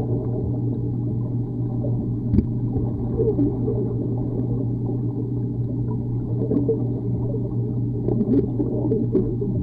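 Muffled underwater pool ambience recorded below the surface: a steady low hum under a dull wash of water noise, with a few faint clicks and knocks, one about two seconds in and several near the end.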